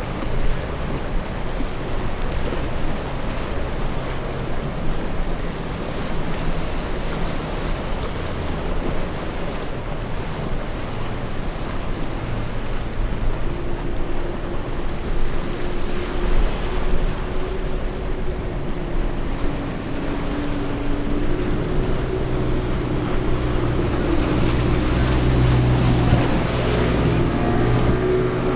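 Rough inlet waves breaking and churning, with wind on the microphone and the drone of boat outboard motors. About halfway in, steady engine tones come in and grow louder toward the end.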